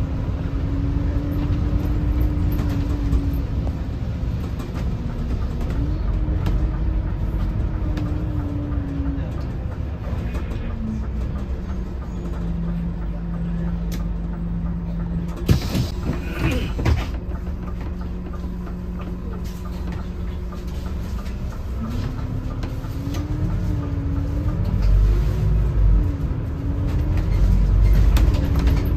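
Scania K280CB bus with its Scania DC09 five-cylinder diesel: the engine and drivetrain note falls as the bus slows to a stop. The note holds steady at idle for about ten seconds, with a short burst of hiss and clatter near the middle, then rises again in steps as the bus pulls away.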